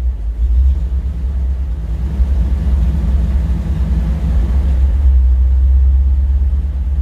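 1970s Chevrolet dump truck engine running steadily in gear, driving the rear axle with the wheels spinning free off the ground. It is a continuous low rumble.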